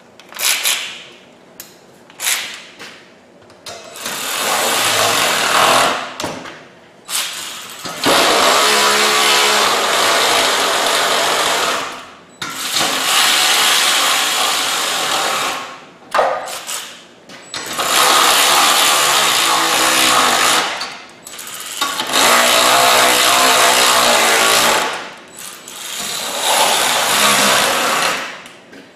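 Power wrench running down the quarter-20 fine-thread bolts on a rock slider, in about six bursts of a few seconds each, with short clicks in the gaps between.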